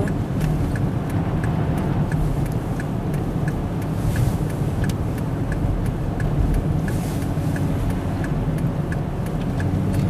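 Steady low road and engine rumble inside a car driving slowly on a snow-covered highway, with a light, even ticking about twice a second, typical of the hazard-light flasher.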